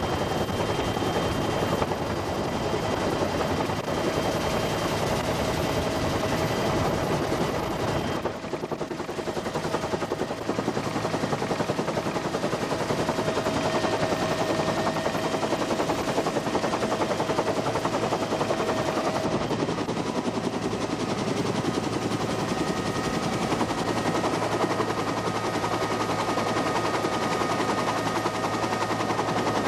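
Military helicopter running close by: the rapid, even chop of its rotor blades with the steady whine of its turbine engine. The sound changes abruptly about eight seconds in, and the whine shifts in pitch again later.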